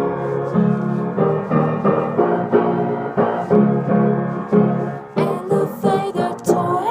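Background music led by piano, with a steady pulse of notes.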